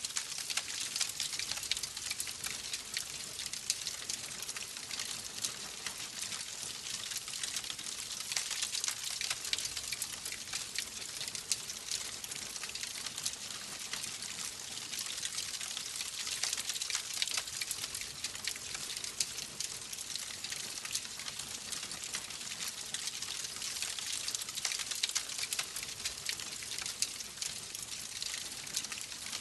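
Wood fire burning in a fireplace, crackling steadily with a dense stream of small snaps and pops over a constant hiss.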